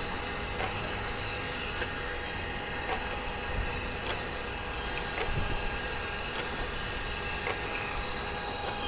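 Okamoto surface grinder running: a steady machine hum with a few high steady tones, broken by scattered light clicks and a couple of dull knocks.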